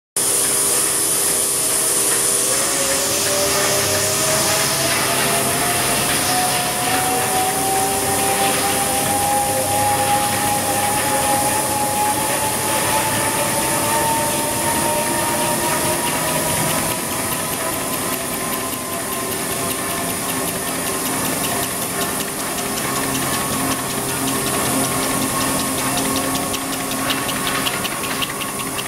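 Paper hand towel machine with laminating rollers running: a steady mechanical hiss and rumble. A motor whine climbs slowly in pitch from about two seconds in until about halfway, then holds steady.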